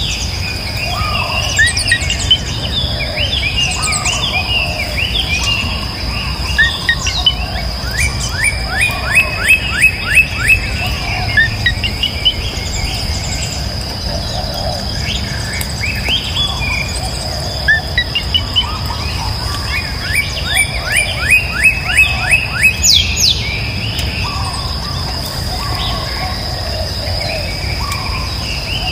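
Birds chirping and calling. About eight seconds in and again about twenty seconds in, two fast trills of rapidly repeated notes rise above the rest. Under the birdsong runs a steady high-pitched hum.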